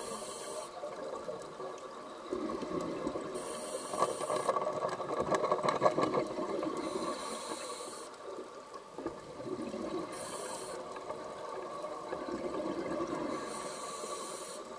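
Underwater scuba breathing through a regulator, with a hissing rush of exhaled bubbles every three seconds or so. Between them comes a plastic water bottle squeezed and crackled underwater to call sharks, with the densest crackling about four to six seconds in.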